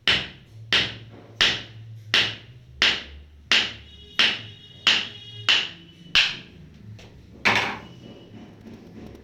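A run of sharp strikes in a steady rhythm, about three every two seconds, each with a short ring. After a brief pause there is one louder strike near the end.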